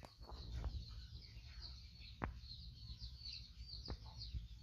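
Small birds chirping steadily in the background, many short high notes, over a low rumble, with a few sharp clicks, the loudest a little past the middle.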